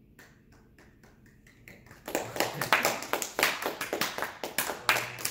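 A small group of people clapping by hand, starting about two seconds in after a short quiet stretch.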